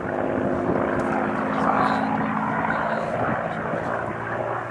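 V12 piston engine of a Second World War fighter in flight, a steady propeller drone that is loudest about two seconds in, its note settling lower near the end.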